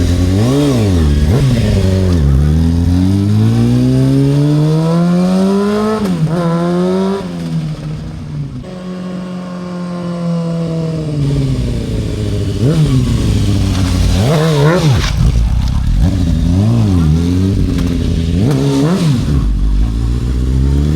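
Honda CBR F4i's 600 cc inline-four engine being revved and ridden, tested on a freshly fitted tire. A long climb in revs a couple of seconds in, a drop-off after, then repeated quick blips of the throttle.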